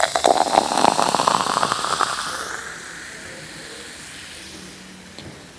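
Food hitting hot oil: a sudden loud crackling sizzle for about two seconds that dies down into a soft steady hiss.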